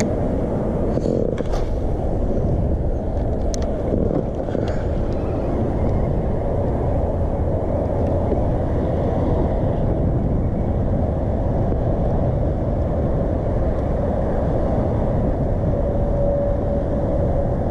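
Steady wind rumble buffeting the camera microphone, with a few faint clicks in the first few seconds.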